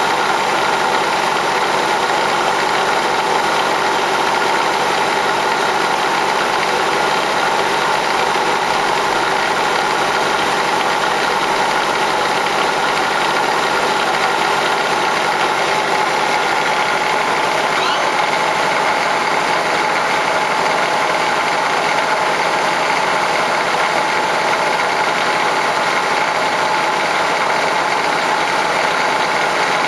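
1992 Shizuoka B-15V CNC vertical machining center running under power: a steady mechanical hum with several constant whining tones, unchanging in level.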